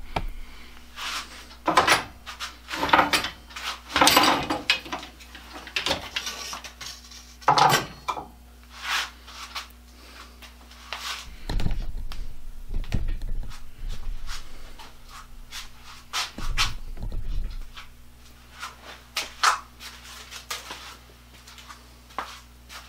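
Handling noise from a camera being picked up and repositioned: irregular knocks, clicks and rubbing, busiest in the first few seconds, with a few dull thumps about halfway through and again later.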